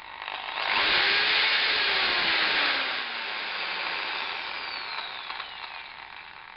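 Electric drill spinning a grinding or cutting disc on an arbor mandrel and biting into material, a harsh grinding noise. The motor's pitch rises briefly, then sinks steadily under load as the noise eases off toward the end.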